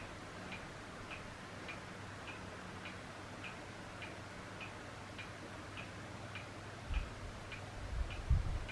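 Steady low hum of an electric fan running, with a regular light ticking a little under twice a second. A couple of dull low thumps come near the end.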